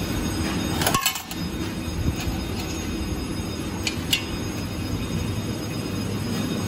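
Coins clinking in the metal dispensing tray of a coin change machine as they are taken out: a cluster of clinks about a second in, then two quick clinks around four seconds in, over a steady low rumble.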